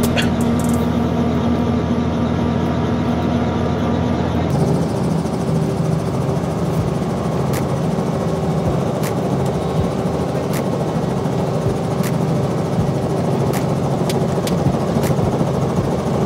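Robinson R44 helicopter running on the ground, heard from inside the cabin: a steady loud drone of engine and turning rotor. The drone changes character abruptly about four and a half seconds in.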